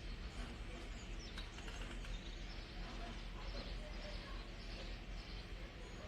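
Faint, steady background noise with a low hum underneath and scattered faint, brief high sounds.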